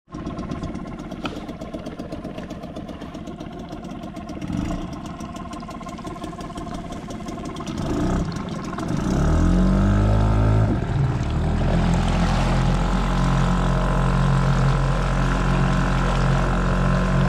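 Small outboard motor on a fishing kayak running at low throttle, then opened up about eight seconds in: its pitch climbs over a couple of seconds and it settles into a louder, steady run.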